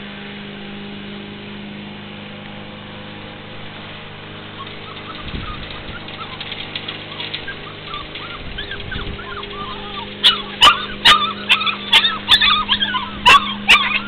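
Puppies yipping and barking: faint whines and yips build up, then break into a rapid run of loud, sharp yips in the last few seconds, over a steady low hum.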